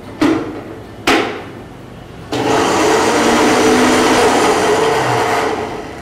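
Two sharp knocks as the jar of a small electric blender is seated on its base, then the blender motor runs steadily for about three seconds, blending rose petals with glycerin and rose water, and stops near the end.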